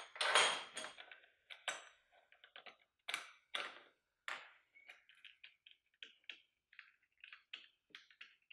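A few knocks of the clamp and workpiece on the drill press table, then a run of light quick clicks, about three or four a second, as a screwdriver is worked on a threaded insert in the MDF fence piece.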